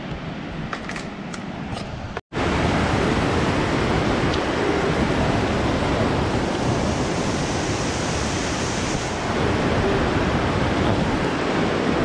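Steady rushing of falling water, the roar of a waterfall or cascade, with a few faint clicks in the first two seconds; after a brief dropout about two seconds in it comes back louder.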